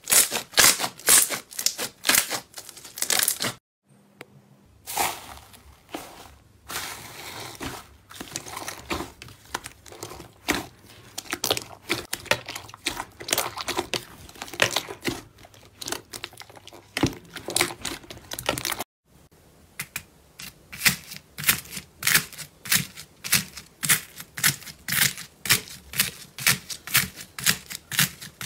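Slime being squished, stretched and pressed by hand, giving a run of sticky clicks and wet pops, broken by a short silence about four seconds in. In the last third, fingers press into slime packed with foam beads, making a quick, even run of crackles.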